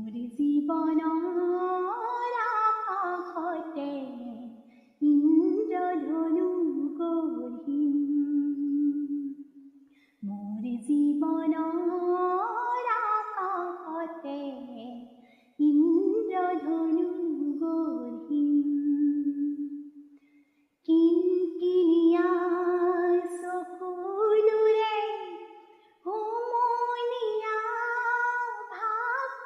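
A woman singing solo without accompaniment, in long phrases of about five seconds that rise and fall in pitch, with a short pause for breath between each.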